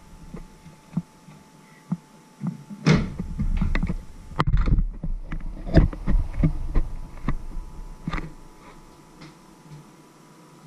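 Camera handling noise: irregular knocks, taps and deep bumps as fingers grip and move the camera against the microphone, busiest over the middle few seconds, over a faint steady hum.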